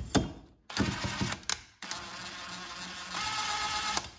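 Cordless impact driver spinning a chainsaw cylinder bolt in, only snugging it, not tightening. It runs in two goes: a short burst about a second in, then a steady whir of about two seconds that gets louder near the end and cuts off.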